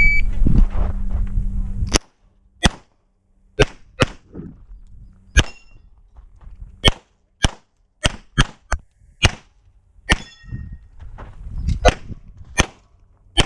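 Shot-timer start beep, then a semi-automatic pistol fired about fourteen times during an IPSC handgun course of fire. The shots come in irregular singles and quick pairs, with gaps of up to nearly two seconds. A loud low rumble fills the first two seconds before the first shot.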